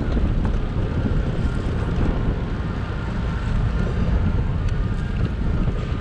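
Wind buffeting the microphone of a camera riding along on a bicycle: a steady low rumble.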